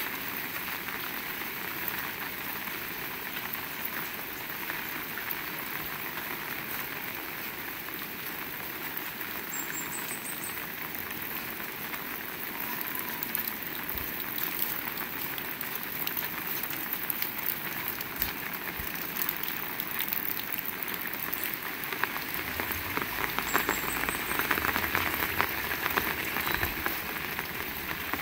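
Heavy rain falling steadily in a dense, even patter, growing louder near the end with more crackling heavy drops.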